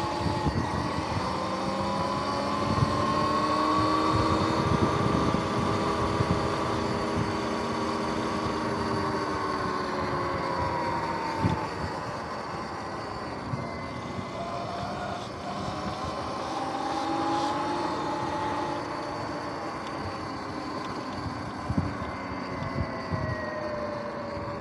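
Sur-Ron electric dirt bike's motor and drivetrain whining under way. The pitch rises as it speeds up and falls as it slows, a few times, over a steady rush of tyre and wind noise.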